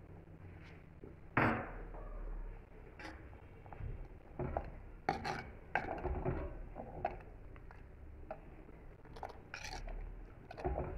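A metal spoon stirring thin buttermilk curry in a clay pot, clinking and knocking against the pot's sides in irregular strokes. The sharpest knock comes about a second and a half in.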